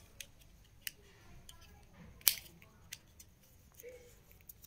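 Handling noise: small scattered clicks and light rustling as hands work a coiled white earphone cable, with one sharper click a little over two seconds in.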